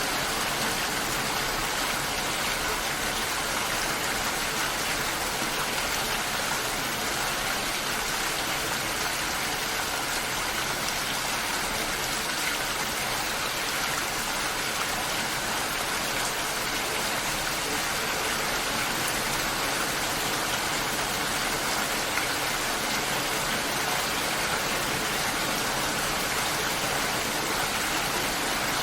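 Steady rain falling, an even, unbroken hiss with no distinct drops or pauses.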